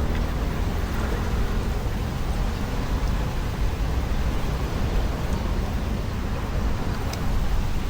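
Floodwater rushing steadily, a continuous noisy wash with a heavy low rumble.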